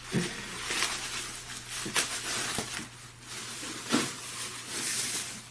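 Bubble wrap being pulled off a bundle and a plastic bag handled: plastic crinkling and rustling, with two sharp crackles about two and four seconds in.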